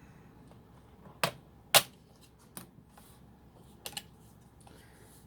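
Plastic retaining clips of a laptop screen bezel snapping loose as it is pried off: several short, sharp clicks, the loudest a little under two seconds in.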